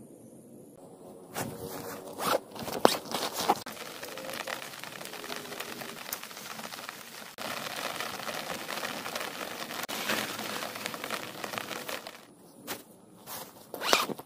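Nylon tent fabric and poles rustling and scraping as a dome tent is handled and pitched, in a series of sharp swishes and crinkles with a steadier rustle in the middle.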